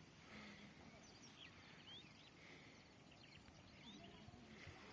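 Faint, distant bird calls: many short chirps and quick rising whistles scattered over a quiet wetland background.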